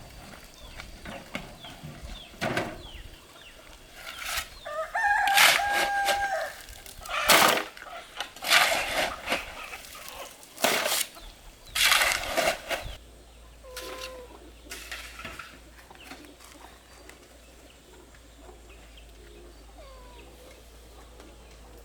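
Chickens clucking and squawking, with a rooster's held call about five seconds in. The loudest calls come in a run over the middle of the stretch, then only faint chirps remain.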